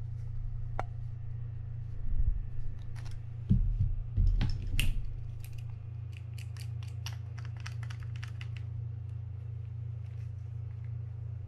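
Pliers clicking and tapping against the metal of a Mitchell 300 spinning reel's rotor while its bent bail trip lever is slowly bent back so it fits its groove. The clicks are scattered at first, then come as runs of quick ticks for several seconds, with a few louder handling knocks among them, over a steady low hum.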